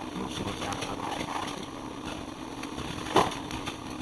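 Microwave oven running with a steady hum, and one short louder sound about three seconds in.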